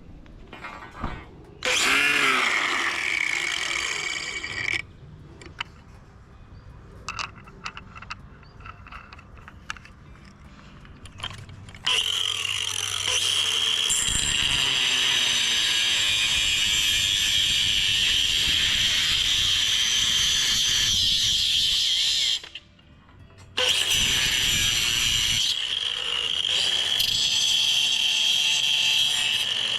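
A power tool running in long trigger-held stretches, stopping abruptly for about a second near the end before starting again, with scattered clicks and knocks in the quieter stretch before it.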